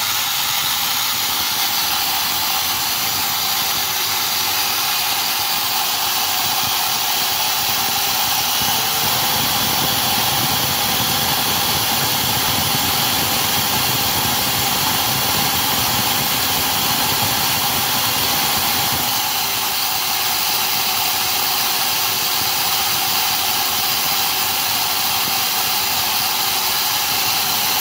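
Electric motors and spur gear of a twin-motor RC truck running steadily at full throttle on 3S, the drive motor spinning the second motor as an alternator; the drive motor is one the owner calls defective. A faint whine rises in pitch about nine seconds in and drops back about ten seconds later.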